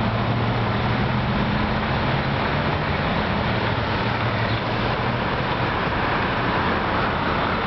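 Steady street traffic noise from cars passing and idling at an intersection, with a low engine hum that fades about halfway through.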